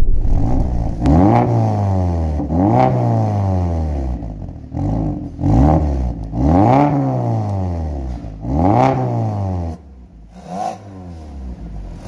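Mazda CX-5's four-cylinder engine being revved again and again through an aftermarket valved catback exhaust with the valve open in 'racing sound' mode. Each rev rises and falls in pitch. Near the end it drops back to a quieter idle with one small blip.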